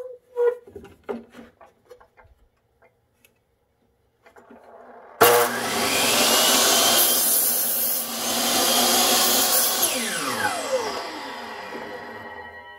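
A few light knocks as a wooden board is set against the fence. Then a chop saw (compound miter saw) starts suddenly about five seconds in, its blade is drawn slowly down through the board in a deliberately slow cut, and the blade winds down with a falling whine near the end.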